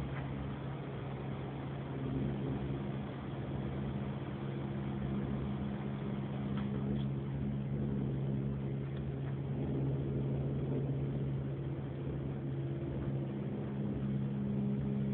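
A steady low droning hum with several fixed pitches, holding level without rising or falling: a continuous mechanical drone.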